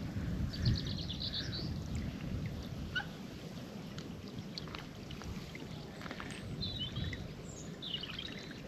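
Small birds singing in short, high chirping phrases, once near the start and twice near the end, over low wind rumble and water lapping at a riverbank.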